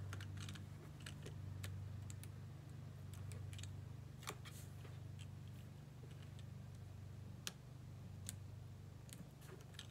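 Light, irregular clicks and taps of a Take Your Pick tool and fingertips working small adhesive strips on a cardstock tab, over a steady low hum.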